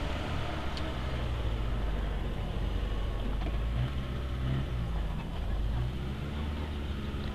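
Engine of a small Suzuki off-road 4x4 running at low revs as it crawls a trial section, with small rises in revs in the middle.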